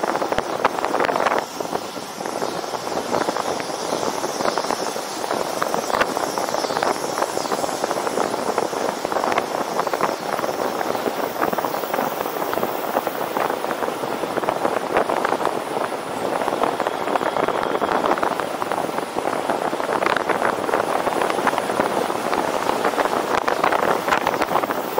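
Wind buffeting the camera microphone on a road bicycle riding at speed: a steady, gusty rush of noise.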